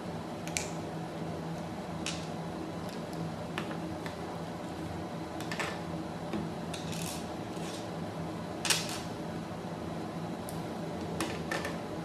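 Hard plastic holster parts, a small screw and an Allen key clicking and clacking as they are handled and set down on a tabletop: about eight scattered knocks, the sharpest about two-thirds of the way through, over a steady low hum.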